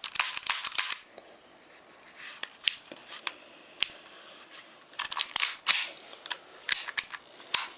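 Sharp mechanical clicks and clacks from a black WE P38 gas-blowback airsoft pistol being handled and worked, in several quick clusters: a run of clicks at the start, a few single ones in the middle, and two more busy runs near the end.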